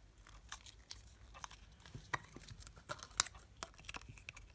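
Thin plastic putty packaging crinkling and crackling in an irregular run of small clicks as putty is pressed down into it by hand.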